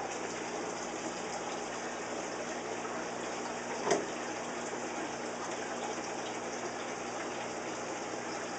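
Water running and splashing steadily in a multi-tank saltwater aquarium system, with one brief knock about four seconds in.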